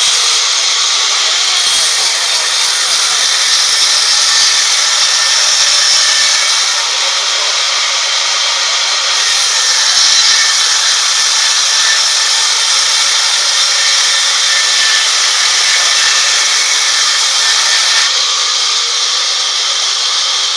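Vertical band saw cutting lengthwise through a teak log: a loud, steady noise of the blade in the wood with no pauses.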